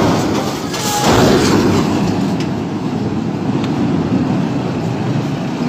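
Truck engine running close by, a steady low rumble that swells louder at the start and again about a second in.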